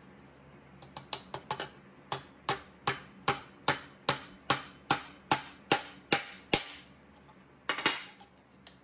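Claw hammer flattening a rivet through a rolled license plate, the plate backed by an anvil. It starts with a few light taps, then settles into steady strikes about two and a half a second, and ends with a short quick flurry.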